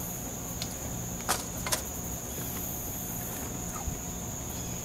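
Steady high-pitched trill of an insect chorus, with two light clicks about a second and a half in.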